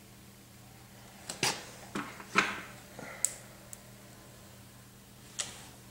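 Several light clicks and taps from hand work with a seam sealer gun, spread over a few seconds above a faint steady hum.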